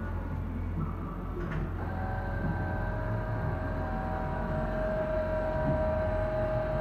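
Goodway GS-280LMY CNC lathe powered up and humming steadily. About a second and a half in there is a click, and a steady whine of several held tones starts up, as a drive motor on the machine begins to run.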